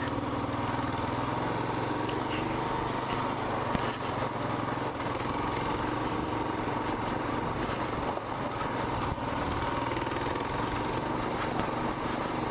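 Kawasaki KLR650's single-cylinder engine running steadily as the motorcycle climbs a rocky dirt trail, with a few brief dips in its sound.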